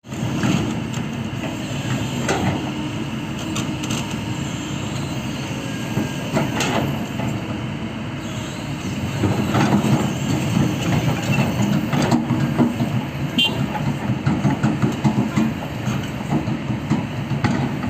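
Heavy diesel machinery running steadily, with scattered metal clanks and knocks, typical of an excavator working.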